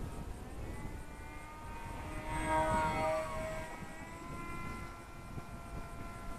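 Electric motor and propeller of a Seal Wing G1500 RC glider whining under power as the plane flies past. The pitch drops as it goes by, loudest about halfway through, then settles to a steadier, fainter whine.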